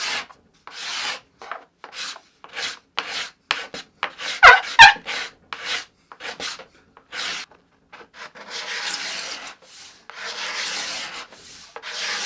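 Steel card scraper drawn across the face of a wooden guitar top in short repeated strokes, about two a second, shaving the surface flat. There are two sharp knocks about four and a half seconds in, and longer, slower strokes near the end.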